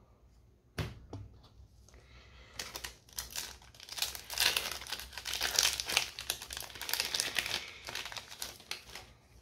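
A trading-card booster pack's wrapper crinkling and tearing as it is pulled open by hand, loudest in the middle, after a single sharp tap about a second in.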